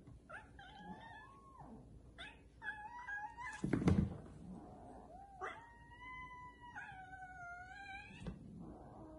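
Bengal kittens yowling at each other in a scuffle: several drawn-out, wavering calls, the longest two held for more than a second each in the second half, with a loud thump about four seconds in as they tumble. The yowls are those of a kitten objecting to the other's rough play.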